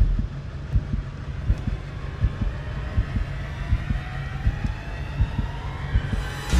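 Suspense sound design: slow, evenly spaced low heartbeat-like thuds, about one every three-quarters of a second, over a low rumble, with a faint tone rising steadily underneath.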